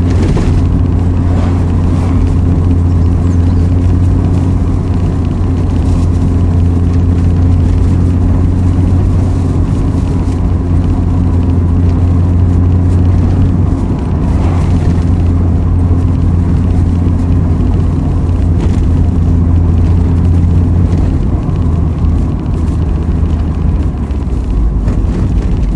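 Mazda MX-5 NA's four-cylinder engine running at a steady cruise, with road noise, heard from inside the car; the engine note shifts slightly lower about 21 seconds in.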